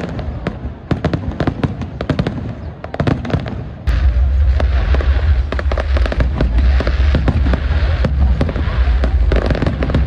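Fireworks display: a rapid barrage of crackling bangs from bursting shells. About four seconds in, a heavy, deep, steady rumble sets in and carries on under the crackle.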